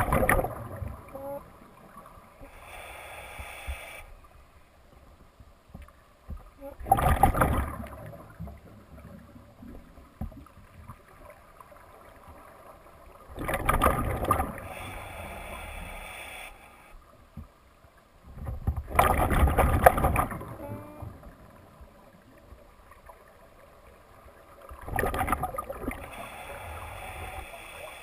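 A scuba diver's regulator heard underwater through a breathing cycle: a loud rush of exhaled bubbles about every six seconds, with a quieter hiss of inhaling between them.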